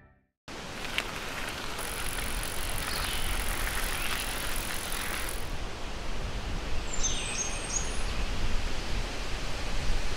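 Outdoor ambience: a steady rush of wind with a low rumble on the microphone, and a bird calling a few short chirps about seven seconds in.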